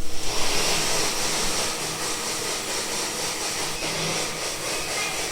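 Adhesive-tape roll cutting machine running: a steady hissing whir that starts suddenly.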